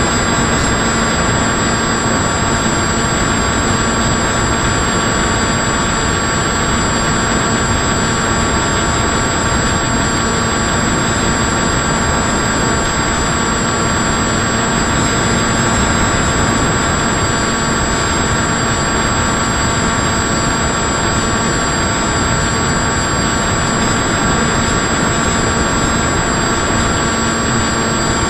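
Motor and propeller of an FPV model aircraft, heard through its onboard camera: a steady whine of several held tones over a rushing noise that does not let up.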